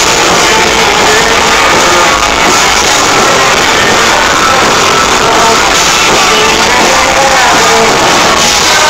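Rock band playing live at high volume, heard from the audience through a phone's microphone, dense and unbroken.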